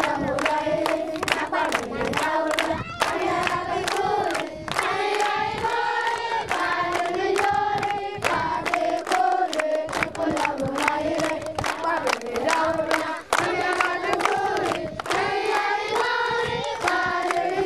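A group of children singing together, clapping in a steady rhythm of about two to three claps a second.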